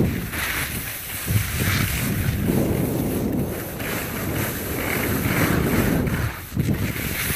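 Wind rushing over a hand-held phone's microphone while skiing downhill, with the skis hissing on the snow through repeated turns. The sound dips briefly near the end.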